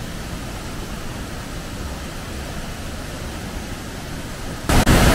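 Steady, deep roar of Lundbreck Falls' pouring water, which jumps suddenly louder and hissier near the end.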